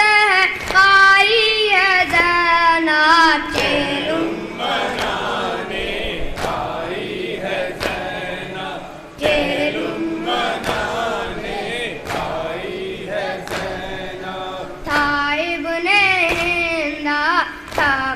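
Nauha, a Shia lament: a boy's solo voice sings a line, then a group of men chants the refrain together, over rhythmic chest-beating (matam) slaps about every 0.7 seconds. The boy's solo voice comes back near the end.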